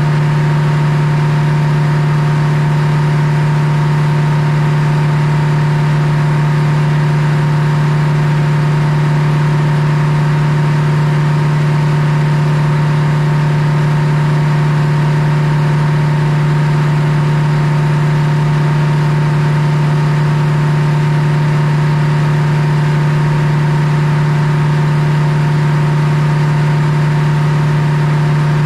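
Belt-driven circular sawmill running steadily with its head saw spinning free, not in the cut: the power unit and drive hold one even, unchanging drone.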